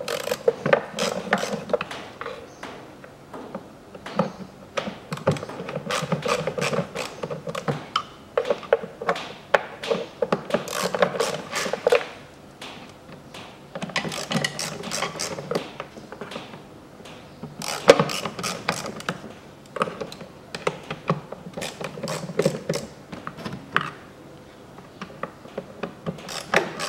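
A ratcheting driver with a Torx T25 bit backing out the air filter housing screws on a Peugeot 408's 1.6 EP6 engine: rapid clicking in repeated bursts, with short pauses between screws and one sharp louder click about two-thirds of the way through.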